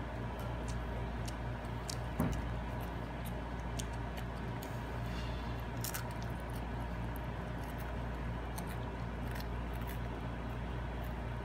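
A toddler chewing a crisp SkyFlakes cracker, small crunching clicks scattered throughout, over a steady low hum. A single thump about two seconds in.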